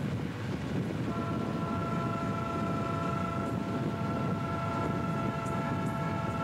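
Southern Pacific diesel locomotive's air horn sounding one long steady chord, starting about a second in and held for about five seconds, over the low rumble of the passing locomotive.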